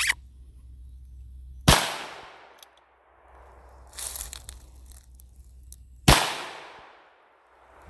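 .22 Magnum revolver fired twice, about four and a half seconds apart. Each shot is a sharp crack followed by an echo that trails off over about a second.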